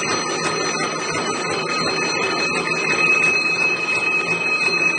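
Double-strand barbed wire machine, model CS-A, running at speed: a steady fast metallic clatter from its barbing and wire-twisting mechanism, with several steady high-pitched whining tones over it.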